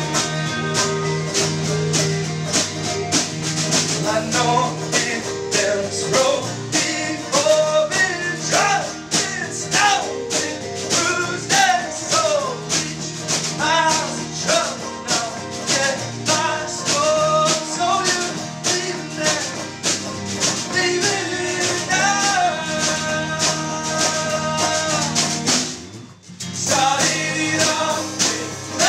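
Folk-punk band playing a song: a singing voice over guitar with a steady drum beat. The music drops out briefly near the end, then comes back in.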